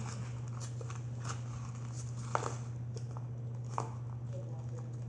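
Shaving cream being stirred into glue for fluffy slime: a few soft, scattered clicks and squishes about a second apart. A steady low electrical hum runs underneath.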